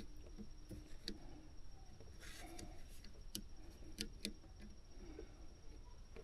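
A few faint, sharp clicks and a short rustle of small parts being handled, spaced irregularly, over a low background hum.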